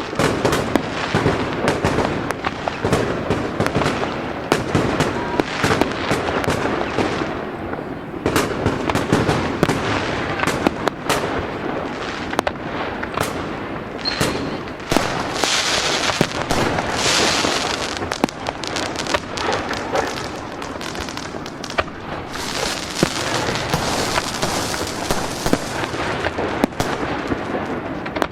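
Fireworks going off in a dense, continuous barrage of bangs and pops. Bursts of crackling fizz rise above them about halfway through and again near the end.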